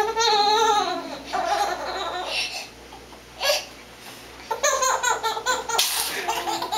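Young child laughing hard: a long high-pitched laugh, then strings of giggles, broken by a short sharp sneeze about six seconds in.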